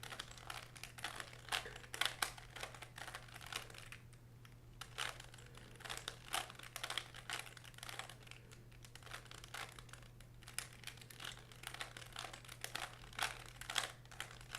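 Plastic twisty puzzle being turned by hand: quick, irregular runs of small clicks and clacks as the layers of a Rubik's-type cube are twisted, with short pauses between moves. A faint steady low hum lies underneath.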